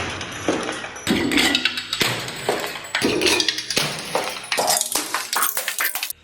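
Flowerpot spinning against a bench grinder, clattering and cracking with dense clinks and crashes, in short chunks that start and stop abruptly about once a second.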